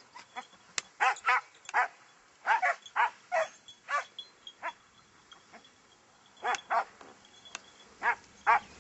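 Hunting scent hounds barking: short pitched barks in two bouts, with a pause of nearly two seconds between them.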